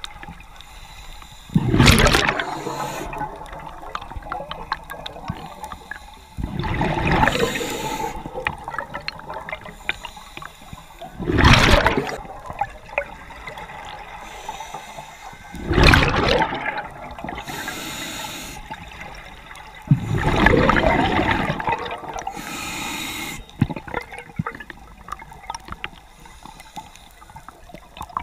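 Scuba diver breathing through a regulator underwater: five loud rushing bursts of exhaled bubbles, one about every four to five seconds, with a softer hiss between them.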